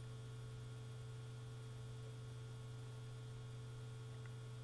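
Steady low electrical hum with a faint hiss: the background noise of a laptop's built-in microphone between spoken lines.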